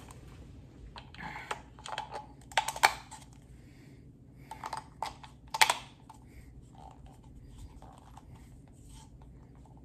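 Clicking and clattering of a small plastic item being handled, in two bursts, each ending in a sharp snap, the first about three seconds in and the second near six seconds.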